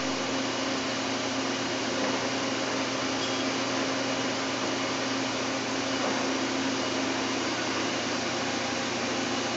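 Steady whirring machine noise with a constant low hum, like machine-shop machinery running under power.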